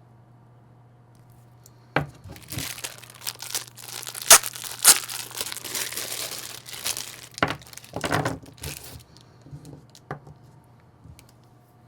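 Packaging torn open and crumpled by hand during a fragrance unboxing. About two seconds in, a sharp rip starts some seven seconds of crackling and tearing, which thins to a few light clicks near the end.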